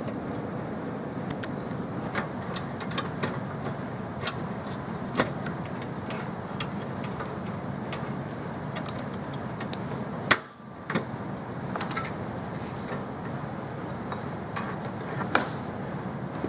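Scattered light clicks and taps over a steady background hum, with a sudden short dropout and a sharper click about ten seconds in.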